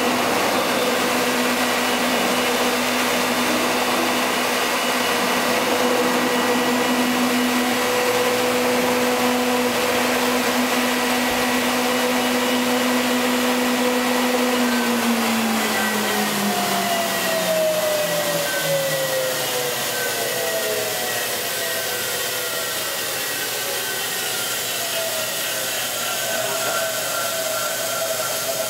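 Thermwood C-40 CNC router running, a steady hum over a rush of air. About halfway through, its tones slide down in pitch over several seconds as something in the machine spins down, while the air rush carries on.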